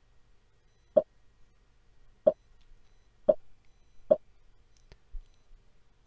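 Four short, sharp plops at uneven intervals, each about a second apart.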